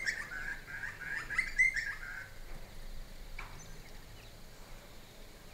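Bird chirping, a fast run of short repeated notes that stops a little over two seconds in, leaving only faint outdoor background.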